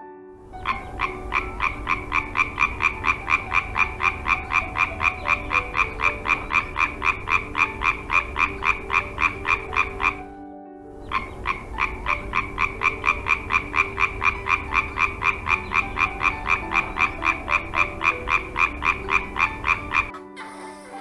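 A frog calling in a long run of rapid, evenly spaced croaks, about five a second. It breaks off briefly about ten seconds in, then starts again.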